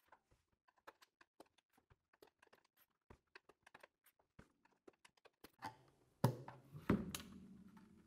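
Faint, rapid, scattered clicks of a slotted screwdriver prying the metal clamps off a plastic steam cylinder, sped up. Two louder knocks come about six and seven seconds in.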